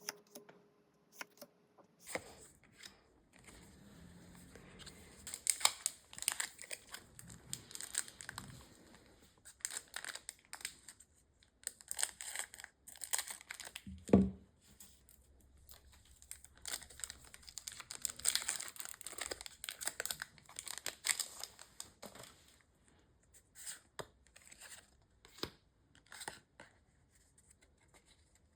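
A foil Pokémon booster pack wrapper is crinkled and torn open in a long run of crackling, with a single thump about halfway through.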